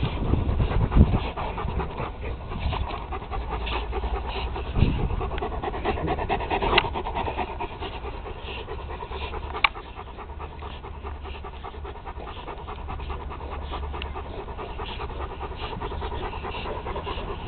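Two cane corsos pulling at a white cloth in a tug-of-war, breathing hard as they tug, with a few sharp knocks.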